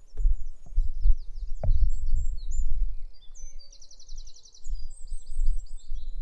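Garden birds singing and chirping, with a fast trill about halfway through, over a loud uneven low rumble of outdoor noise. A few soft knocks come in the first two seconds.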